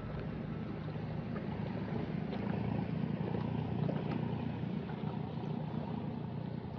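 Fishing-boat engine running steadily, a low rumble with a few faint clicks on top.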